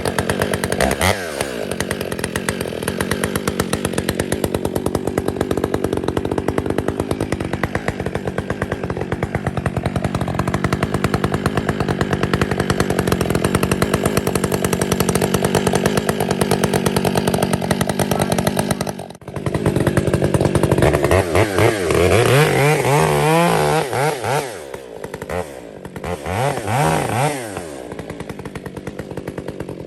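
Two-stroke chainsaw running steadily at high revs for most of the first two-thirds, briefly dropping out about two-thirds through. After that it revs up and falls back toward idle several times.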